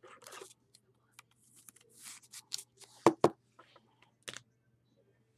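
Trading cards being handled by hand: light rustling and sliding of card stock, with two sharp clicks just after three seconds in and another a second later.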